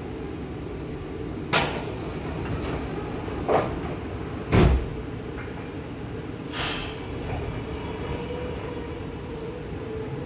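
Sliding passenger doors of a Meitetsu 6000 series train car closing: a few knocks, then a heavy thump as they shut about four and a half seconds in, followed by a brief hiss, over the steady hum of the standing train.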